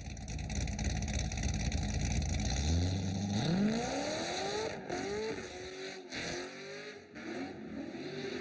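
C6 Corvette V8 exhaust rumbling at idle, then revved several times, the pitch sweeping up with each blip from about three seconds in.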